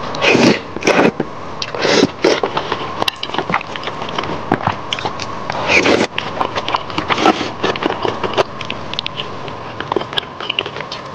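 Close-miked eating: slurping mouthfuls of spicy food in sauce off a wooden spoon and wet chewing, with loud slurps about a second in, around two seconds and around six seconds, and many small mouth clicks in between.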